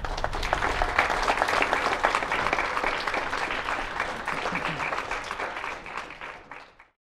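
Audience of a few dozen people applauding steadily, fading out near the end.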